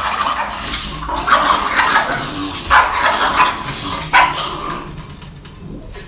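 Small dogs barking in short, sharp yaps, which fade out after about five seconds.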